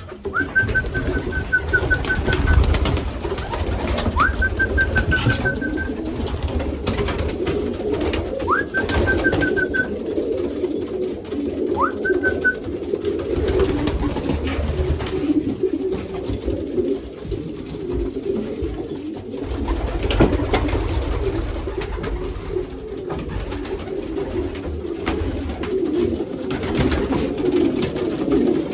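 Many racing pigeons cooing together in a loft, a continuous dense murmur, as cock birds court hens just let in among them. Four short high chirps sound in the first half, with scattered light clicks and rustles.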